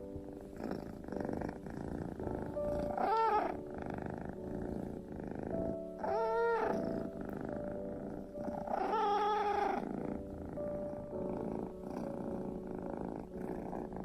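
Domestic cat purring steadily, with three drawn-out meows about three seconds apart, each rising and then falling in pitch, over soft background music with held notes.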